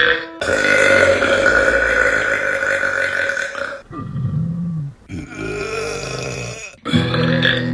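A run of women's burps cut back to back. A brief burp comes first, then one long burp of about three and a half seconds, then three shorter ones.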